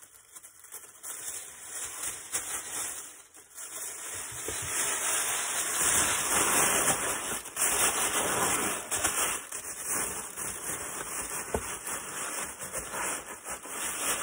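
Packaging rustling and crinkling as a squishy soft toy is stuffed into a shipping bag, faint at first and louder from a few seconds in.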